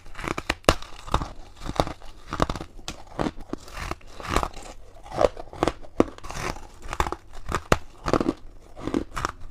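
Close-miked biting and chewing of shaved ice: a run of irregular, crisp crunches, several a second, with some louder bites among them.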